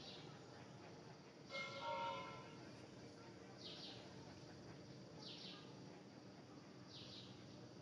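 Quiet outdoor ambience with a few short, high chirps that dip slightly in pitch, about one every second and a half to two seconds, and a brief ringing, bell-like tone about a second and a half in.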